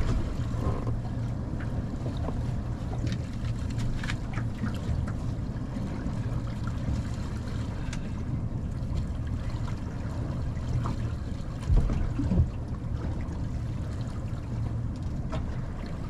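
Steady wind rumble on the microphone aboard a small boat at sea, with faint water sounds and a few light clicks. Two dull knocks close together about twelve seconds in.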